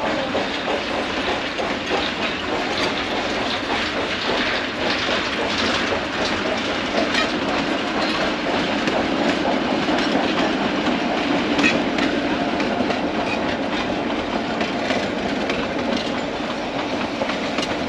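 Narrow-gauge freight cars and a caboose rolling past on steel wheels: a steady rolling rumble with scattered clicks as the wheels cross the rail joints.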